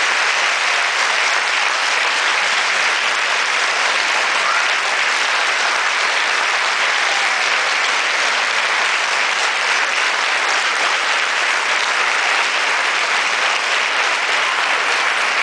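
Audience applauding, a steady dense clapping that holds throughout.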